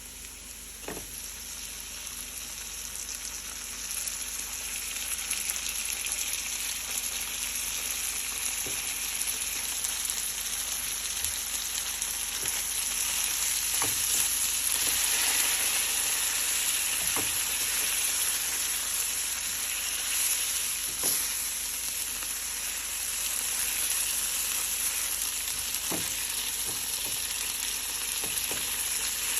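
Cream sauce with onion, garlic and herbs sizzling in a frying pan, a steady hiss that builds over the first few seconds as the newly added cream heats. A few light knocks of a utensil against the pan from stirring.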